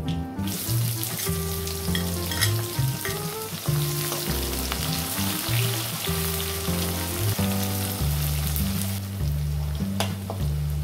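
Oil sizzling loudly as sliced onions go into hot oil with whole spices in a steel kadhai, starting about half a second in and easing off near the end. There are a few clinks from the metal spatula stirring, over background music.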